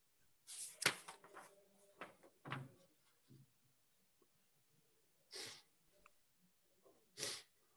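Faint room noises: a sharp knock with a brief ringing tone about a second in, a few smaller clicks, and two short rushes of noise, one near the middle and one near the end.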